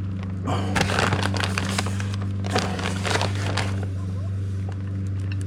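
Pizza toppings being handled and dropped onto a pizza: scattered rustles and soft taps in two bursts, about half a second in and again around three seconds in, over a steady low hum.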